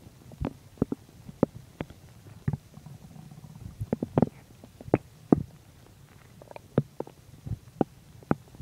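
A human stomach and intestines gurgling during digestion: a quick, irregular run of short pops and gurgles over a low rumble, busiest around four to five seconds in.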